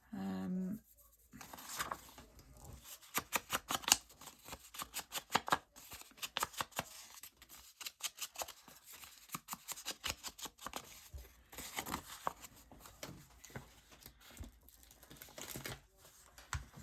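Scissors cutting paper: a long run of irregular quick snips.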